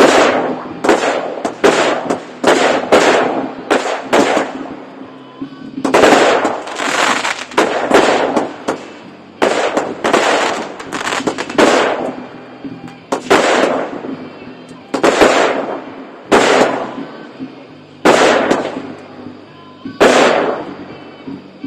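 Fireworks going off: a long series of loud bangs, each with a ringing tail, coming about twice a second at first and spreading out toward the end. Faint music plays underneath.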